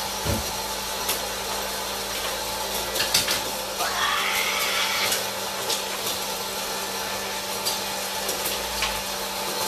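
Hot-air popcorn popper running: a steady fan whir and hiss of blowing hot air, with a few sharp clicks scattered through.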